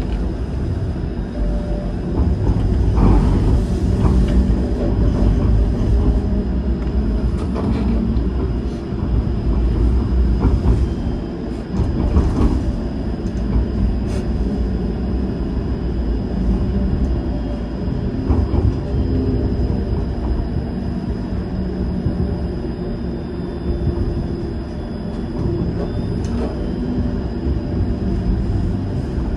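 Streetcar running along a city street, heard from inside the car: a steady low rumble of wheels and motor, with a faint steady high whine and scattered clicks and rattles.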